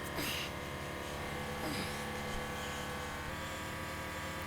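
A steady electric hum made of many fixed tones. Two short scraping sounds with falling squeaks come about a quarter second in and again about a second and a half in.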